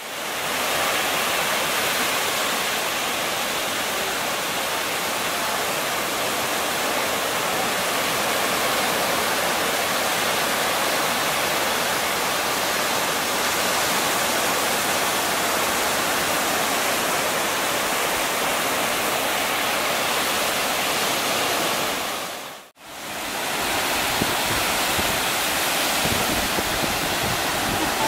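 Steady rushing noise of ocean surf and wind. It fades out and back in about 23 seconds in, and some low wind rumble on the microphone comes in near the end.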